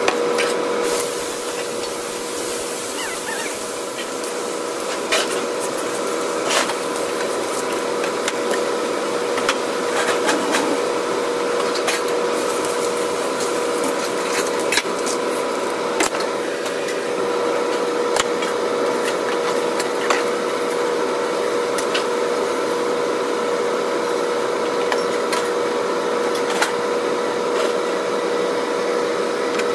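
Warm water sizzling and hissing as it is poured onto a hot flat-top griddle and steams off, over a steady hum, with scattered sharp clicks and scrapes.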